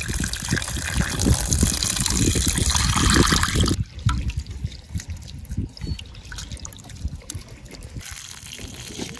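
Water splashing and trickling as a handful of small river prawns are rinsed by hand. About four seconds in the sound drops suddenly to quieter, scattered trickling and dripping.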